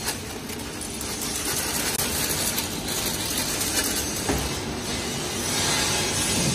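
Small metal parts tipped from a box onto the mesh conveyor of an industrial parts washer, a dense metallic clatter, over the steady noise of the running washer.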